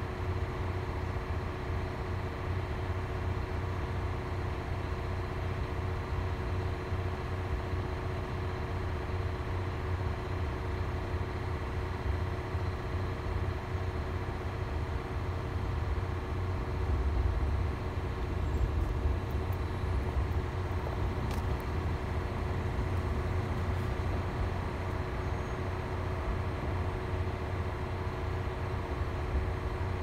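KiHa 40 diesel railcar running at low speed: a steady low engine rumble with a constant hum, swelling slightly a little past the middle.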